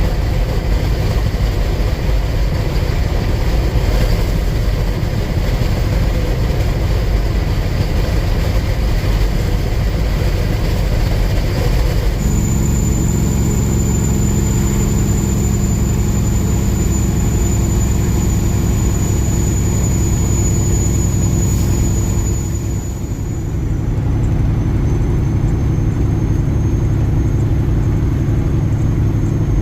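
Kenworth W900 semi truck's engine and road noise heard from inside the cab while driving at highway speed, a steady drone. About twelve seconds in the sound changes abruptly to a smoother hum with a faint high whine, dipping briefly about ten seconds later.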